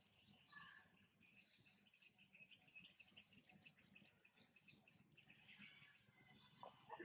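Faint insect chorus: a high-pitched buzz that swells and fades in pulses, with a few short chirps.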